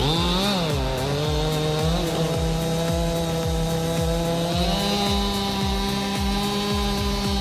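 Chainsaw engine revving up and then running at a steady high pitch, stepping up to a higher pitch about two-thirds of the way through, over backing music with a steady thumping beat.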